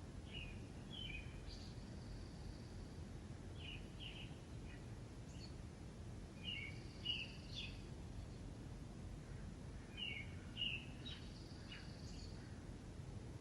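Songbirds singing: short chirping phrases recurring about every three seconds, with a few high, thin, held whistled notes, over a steady low background rumble.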